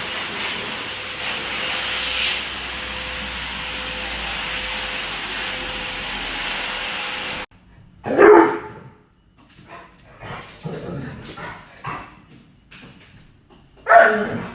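A steady rushing hiss that cuts off suddenly about halfway through, then a dog barking loudly twice, about six seconds apart, with quieter dog noises between the barks.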